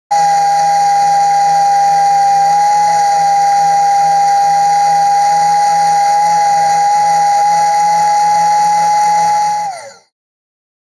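Bench spindle sander running with a loud, steady high-pitched whine and a low hum beneath it, sanding a fretboard end. Near the end the whine sags in pitch and cuts off abruptly.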